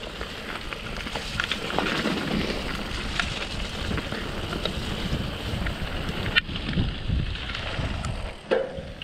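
Mountain bike rolling down a wet, rocky dirt trail: the tyres run over loose stones and the bike rattles over bumps as wind rushes over the microphone. Two sharper knocks come from bigger bumps, one past the middle and one near the end.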